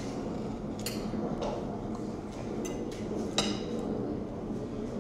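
Cutlery clinking against a dinner plate as food is eaten: a few short, light clinks, the clearest about three and a half seconds in, over a faint steady hum.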